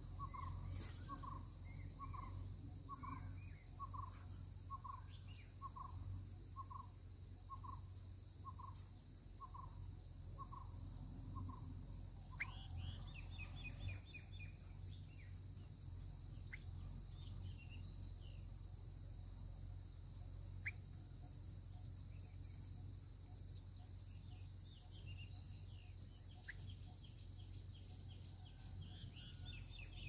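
Bulbul nestlings giving thin, high begging chirps in quick clusters, once about twelve seconds in and again near the end, as the parent comes to the nest to feed them. Under it runs a steady high insect drone. For the first twelve seconds a distant bird repeats a single note nearly twice a second.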